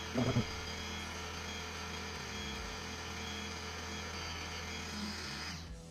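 Steady whirring hum of a running motor, which cuts off abruptly near the end.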